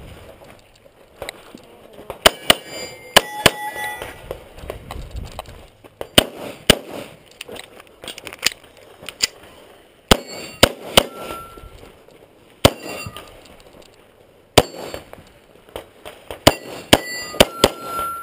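Beretta 92A1 9mm pistol firing a string of shots, mostly in quick pairs with pauses between groups. Steel targets ring briefly with a pinging tone after some hits.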